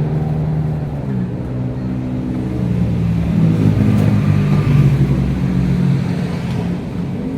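Motor vehicle engines running, steady at first and then getting louder and higher in pitch about halfway through before easing off.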